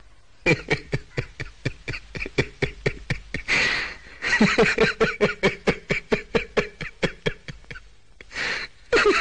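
A person laughing hard in rapid ha-ha pulses, about six a second, broken twice by a gasping in-breath, about four seconds in and again near the end.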